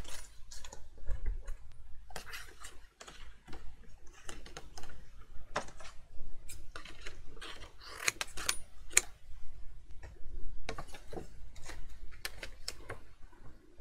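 Handling sounds of a die-cutting setup: cardstock rustling and scattered light clicks and taps as a thin metal die is placed on card and the cutting plates are shifted.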